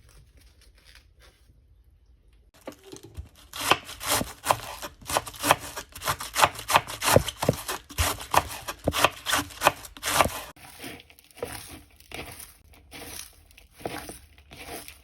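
Crisp salad vegetables being cut up by hand: a quick run of crunchy strokes about three a second begins a few seconds in, then turns lighter and sparser from about ten seconds.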